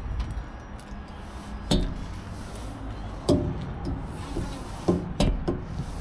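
Close-up eating sounds from burritos held in foil wrappers: chewing and mouth noises, with four sharp smacks spread through, over a steady low rumble.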